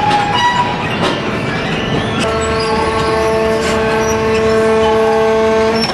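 RUF hydraulic wood briquette press running, with knocking and clatter as the sawdust briquettes are pushed out. About two seconds in, a steady whine of several held tones sets in and carries on.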